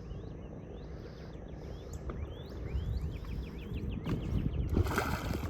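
Birds chirping: a quick series of short rising chirps over a steady low outdoor rumble, with a rush of wind noise on the microphone near the end.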